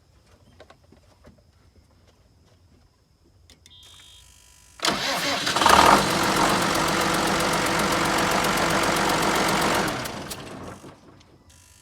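John Deere 7420 tractor's six-cylinder diesel cranked on the starter and catching almost at once, about five seconds in, then running steadily for about five seconds before it is shut off and winds down. It starts now that the faulty starter relay has been replaced.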